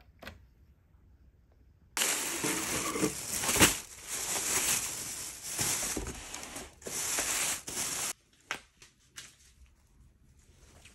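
A cardboard delivery box and its packaging being handled and opened. There is loud crinkling and rustling, starting about two seconds in and cutting off about six seconds later, followed by faint soft handling sounds.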